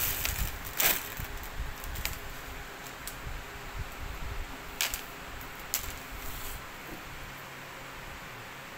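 Clear plastic packaging crinkling and rustling as a wrapped suit is handled and taken out of it, with several sharp crackles in the first six seconds, then growing quieter near the end.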